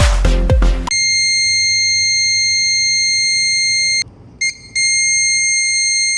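Electronic buzzer of a homemade fire alarm circuit sounding one steady high tone. It starts about a second in, cuts out for under a second about three seconds later with a short blip in the gap, then sounds again.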